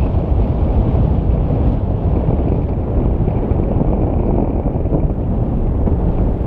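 Steady low rumble of an erupting volcanic crater throwing up lava fountains, mixed with wind buffeting the microphone.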